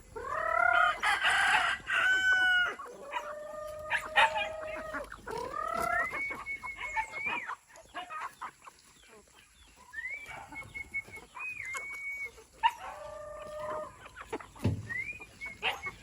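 Roosters crowing, about five long crows one after another, with chickens clucking in between.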